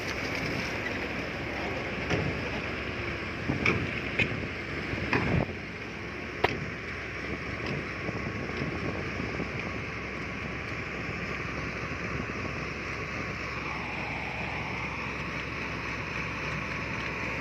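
Heavy diesel construction machinery running steadily. Several sharp knocks come in the first third.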